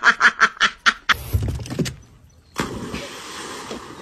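A person laughing in quick, rhythmic bursts for about a second. Then a short low burst of noise, a brief lull, and from about two and a half seconds in a steady hiss with a low rumble.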